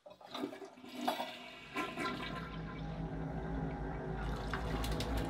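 Household toilet being flushed: a few clicks as the handle is pressed, then water rushing into the bowl about a second and a half in, swelling steadily.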